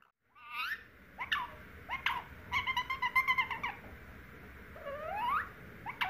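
Indian ringneck parakeet making short sweeping squawks, then a quick warbling chatter in the middle and a long rising whistle near the end.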